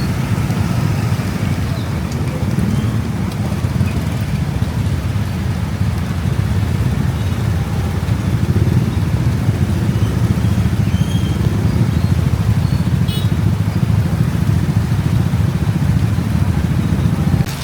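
Steady low rumble of a motorbike ride in the rain, with engine, road and wind noise together. The level drops slightly near the end.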